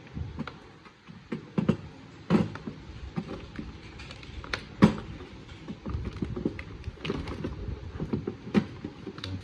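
Irregular knocks and clicks of hard objects being handled, the loudest about two and a half and five seconds in.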